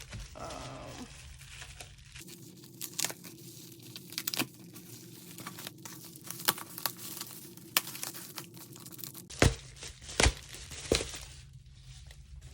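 Packaging being torn open and handled, a steady crinkling and tearing with a few sharp cracks in the last few seconds.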